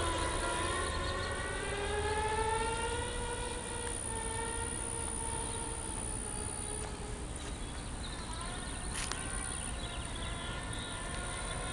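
Whine of the RoboPed self-balancing scooter's electric motors, its pitch slowly rising and falling as the rider changes speed. A single short click comes about nine seconds in.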